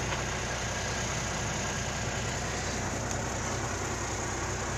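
Cummins Big Cam inline-six diesel truck engine idling steadily, heard from inside the cab.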